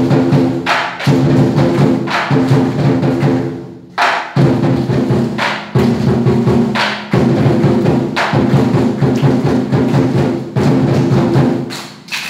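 Lion dance percussion: a drum beaten with cymbals clashing in a fast, continuous rhythm, played in phrases broken by short pauses.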